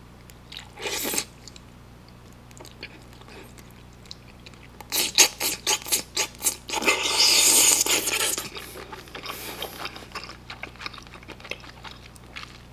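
A person eating wide Chinese glass noodles with braised chicken: chewing with wet mouth smacks, a quick run of smacks about five seconds in, then a long, loud slurp about seven seconds in.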